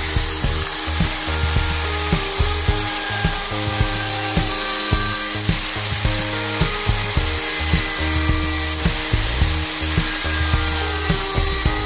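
Electric router mounted upside down as a makeshift router table, its bit running and shaping the edges of small wooden pieces fed by hand. Background music with a steady beat plays over it.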